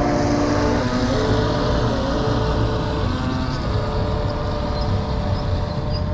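Heng Long Atlantic radio-controlled model yacht's electric motor whining as the boat runs across the water, its pitch shifting up and down with the throttle, over a steady low rumble.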